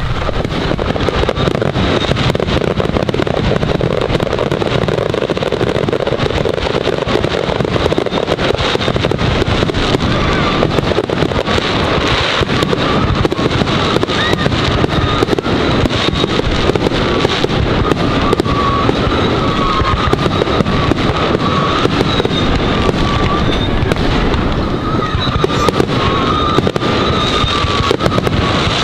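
Fireworks going off in rapid succession, a dense, continuous crackling and popping of aerial bursts. Through the second half a wavering high tone runs beneath the crackle.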